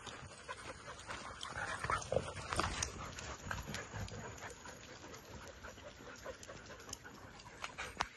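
A pack of dogs panting while they trot on an asphalt road, with a steady patter of footfalls and a short dog vocalization about two seconds in.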